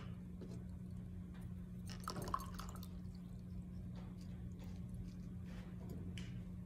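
Low steady hum of the room, with a short cluster of light clicks and clinks about two seconds in and a few faint ticks after.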